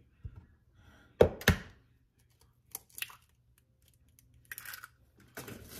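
An egg knocked twice against the rim of a bowl about a second in, sharp and close together, then fainter clicks and rustles as the shell is pulled apart over the bowl of ground beef.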